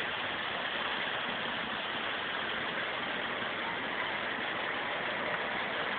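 Log flume ride: a steady rush of water flowing along the flume channel, even and unbroken.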